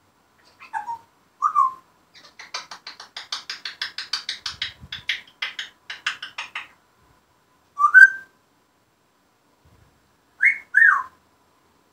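African grey parrot vocalizing: two short whistles, then a rapid clicking chatter at about six clicks a second for some four seconds. A rising whistle follows, and near the end two quick falling whistles, the loudest sounds.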